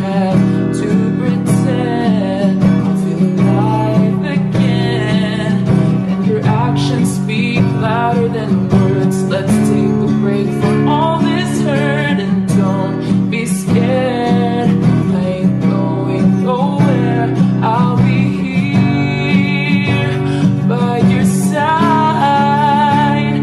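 Background music: a pop song with a long stretch where no words are sung.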